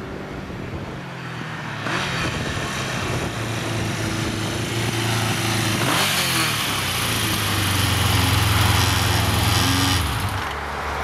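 Honda CB750 inline-four motorcycle engine approaching, passing close by with a drop in pitch about six seconds in, then quietening as the bike pulls up near the end. The engine is running on only three cylinders, with one cylinder not firing.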